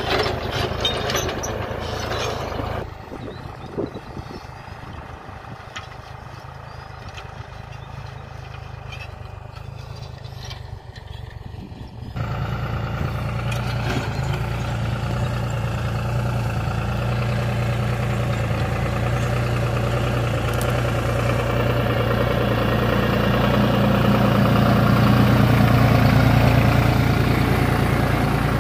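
Deutz-Fahr tractor's diesel engine running under load as it pulls a disc plough through hard soil, a steady low drone. It is fainter for several seconds in the middle, then much louder and close from about twelve seconds in, swelling a little toward the end.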